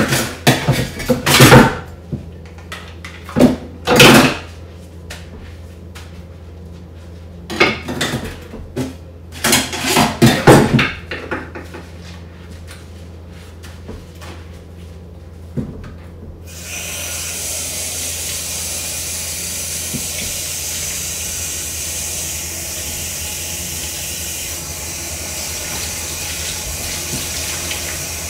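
Washing up at a stainless-steel kitchen sink: several short bursts of clatter and splashing in the first ten seconds or so. About sixteen seconds in, the kitchen tap is turned on and water runs steadily into the sink.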